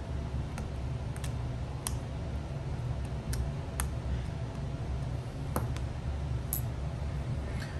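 Scattered small, sharp clicks and ticks of hand tools against smartphone parts during a repair, about eight in all, over a steady low hum.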